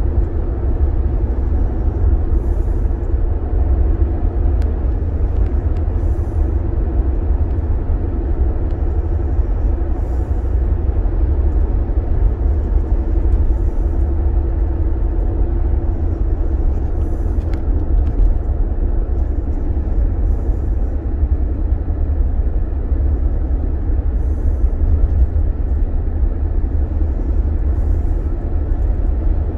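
Car driving along at a steady pace, heard from inside the cabin: a steady low rumble of engine and road noise.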